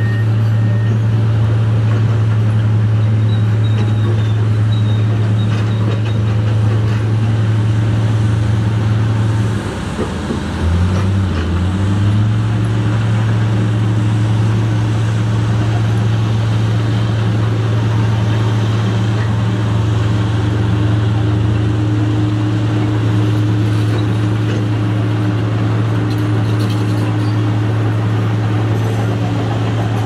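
Motor grader's diesel engine running steadily with a low hum as the machine grades the dirt. About ten seconds in, the engine note drops briefly for a second or two, then comes back up.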